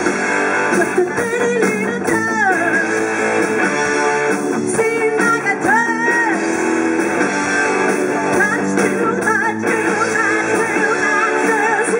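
Live rock band playing: electric guitar, bass guitar and drums, with a woman singing lead vocals.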